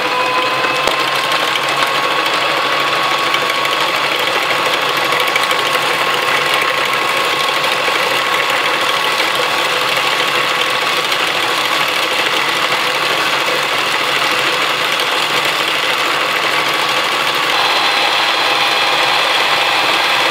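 Electric stand mixer running steadily with a high motor whine, its twin beaters whipping chocolate mousse powder and milk in the bowl. About seventeen seconds in, its tone shifts and it grows a little louder.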